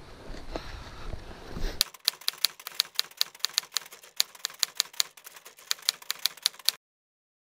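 Typewriter key clicks, a sound effect under a caption typed out letter by letter: rapid, uneven clicks, several a second, that stop abruptly near the end. Before them come about two seconds of rumbling outdoor noise from the body-worn camera's mic.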